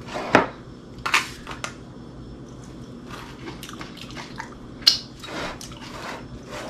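Metal utensil scooping baked rhubarb crumble from the baking dish and setting it on a plate: a few sharp clinks and scrapes against the dishes, the loudest near the start and about five seconds in.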